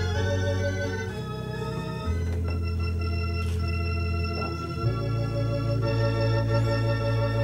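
Organ music: slow, held chords over deep bass notes, the chord changing every second or two.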